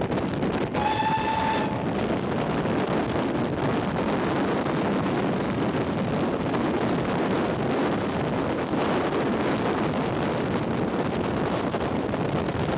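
Steam locomotive whistle: one steady blast of about a second, near the start. Under it and after it runs the steady rumble of a train carriage on the rails.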